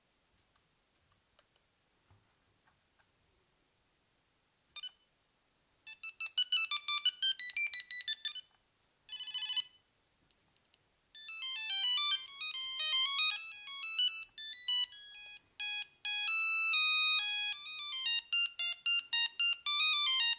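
Siemens A40 mobile phone playing a ringtone through its small speaker: a quick melody of short electronic beeping notes that starts about six seconds in and is broken briefly around ten seconds in. Before it come a few faint clicks and a single short beep.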